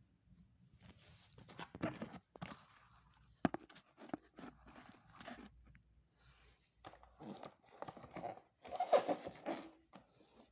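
Packaging being opened and handled by hand: irregular crinkling and crunching with a few sharp clicks, loudest near the end.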